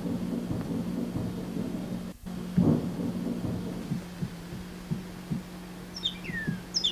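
Low rumbling thumps over a steady hum, with a brief drop-out in the middle. A few short, quick falling whistles come near the end.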